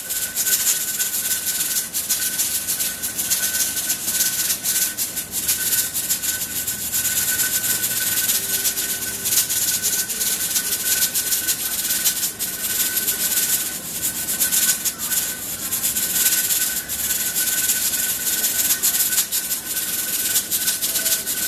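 Pressure canner's weighted regulator (jiggler) rocking on its vent and letting out steam: a fast, uneven rattle over a loud hiss, with a thin steady whistle underneath. This is the canner holding 10 pounds of pressure during processing.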